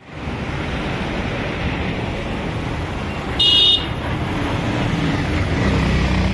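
Steady road traffic noise with a low rumble, and one short, high-pitched vehicle horn toot about three and a half seconds in.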